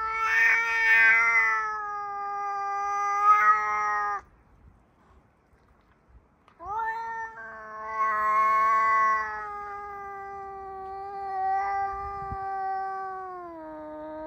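Male domestic cat yowling in two long, drawn-out wails. The first ends about four seconds in. The second starts a couple of seconds later, runs for about eight seconds and sinks slowly in pitch near its end.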